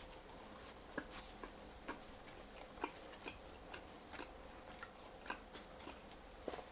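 Close-miked chewing of seasoned potato fries: faint, irregular mouth clicks and small crunches, several a second.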